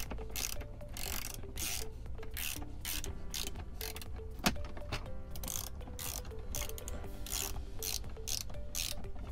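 Socket ratchet with a 10 mm socket clicking in quick strokes, about three a second, as it tightens a bolt on the screen mount bracket. One sharper click comes about four and a half seconds in.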